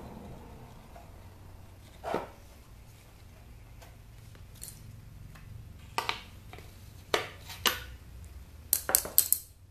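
Parts of a dismantled electric hot water pot knocking and clinking as they are handled: single sharp knocks about two, six and seven seconds in, then a quick run of clatters near the end.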